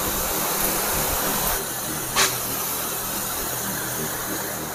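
Battery-powered 12-volt knapsack sprayer running, its electric pump driving a fine mist out of the brass nozzle: a steady hiss of spray over a low pump hum, with one brief click about two seconds in.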